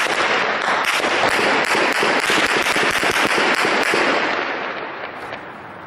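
Intense gunfire: many guns firing at once in a dense, continuous crackle of shots that thins out and fades over the last second or so.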